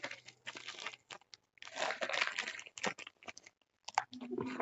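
Product packaging crinkling and rustling as it is handled, in irregular stretches with scattered clicks.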